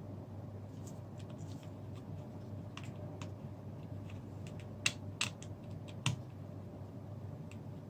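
A scattering of light clicks and taps from small parts being handled, with three sharper clicks close together in the second half, over a steady low hum.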